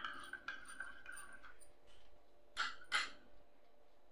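A metal spoon stirring and scraping thick yogurt chutney in a ceramic bowl, followed by two sharp clinks of the spoon against the bowl about two and a half and three seconds in.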